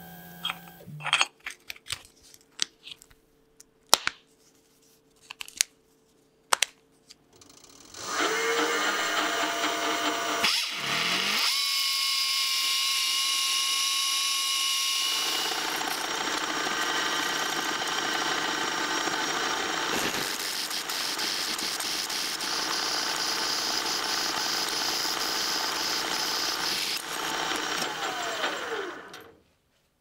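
A few scattered clicks and knocks, then a small metal lathe runs steadily for about twenty seconds while a drill bit in the tailstock chuck bores the centre of a wheel held in the lathe chuck. It winds down and stops near the end.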